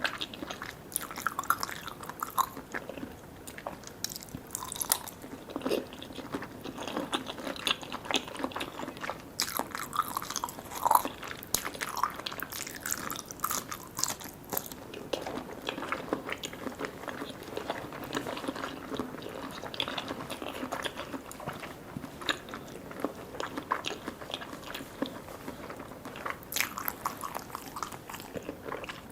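Close-miked eating of soft, sticky Vietnamese desserts (jellies and pandan layered cake): steady biting and chewing, with many small sticky, wet clicks.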